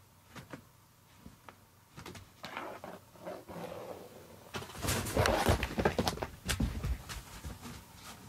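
Rustling and soft knocks of a cat moving about inside a pop-up fabric play tunnel: light scattered clicks at first, building to the loudest burst of rustling and thumps about five to seven seconds in.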